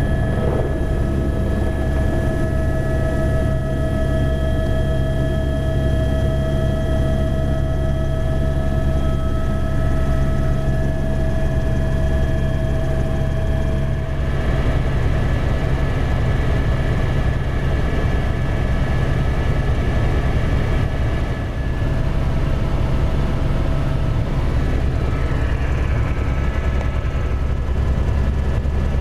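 Cabin noise of an AS350 A-Star helicopter in flight: its single turbine engine and rotor make a steady, heavy drone with a thin, high turbine whine over it.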